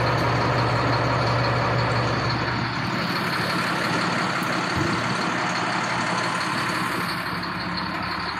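Caterpillar 3126 diesel engine of a Ford F650 truck idling steadily. Its low drone drops off about three seconds in and the sound slowly gets quieter.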